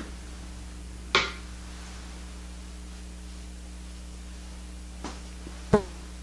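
A painting tool knocks twice against something hard, about a second in and again near the end, each clink ringing briefly, over a steady low electrical hum.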